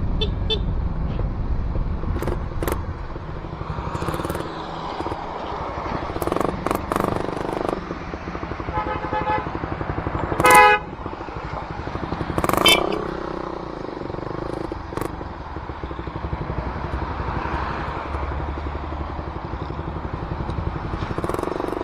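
Suzuki Raider 150 Fi's single-cylinder engine running through an aftermarket ORBR open pipe as the motorcycle rides along in traffic. Vehicle horns honk three times in the middle, the second the loudest.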